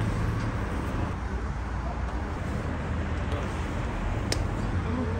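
Steady low rumble of road traffic, with one sharp click about four seconds in.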